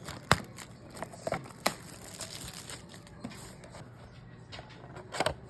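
Crinkling and tearing of a foil trading-card pack wrapper being handled and opened, with a few sharp crackles.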